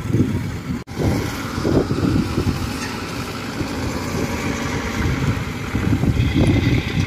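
Engines of a Kubota combine harvester and a small tracked rice-sack carrier running steadily in the paddy, with a momentary dropout just under a second in.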